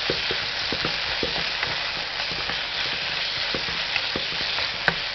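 Onions, capsicum and sauces sizzling in a hot pan while being stirred, with frequent light knocks of the spoon against the pan.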